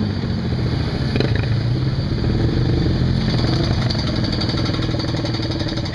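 Jeep Grand Wagoneer engine running steadily as the truck creeps its front tyre up a ramp, with a single knock about a second in.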